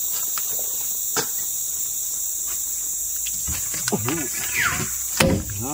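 Steady high-pitched insect chorus, with light clicks and knocks from wood being handled and a sharp knock about five seconds in.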